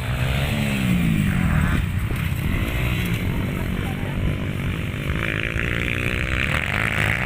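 Motocross dirt bike engines running and revving, the pitch rising and falling with the throttle.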